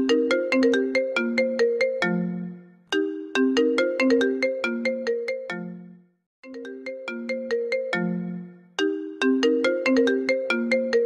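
iPhone ringtone playing: a short melody of quick, struck, marimba-like notes, each phrase ending on a low held note and repeating every three seconds or so, with a brief silence about six seconds in.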